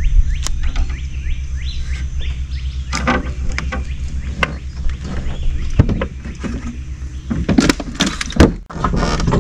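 A low steady rumble with short, quickly rising bird chirps over it in the first two seconds. Then come scattered knocks and clatter from hands and gear moving about the fishing boat, loudest and busiest near the end.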